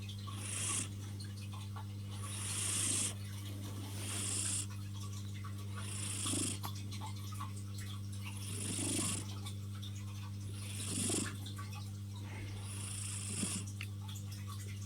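Tuxedo cat snoring in her sleep: a hissy snore about every two seconds, seven in all, over a steady low hum.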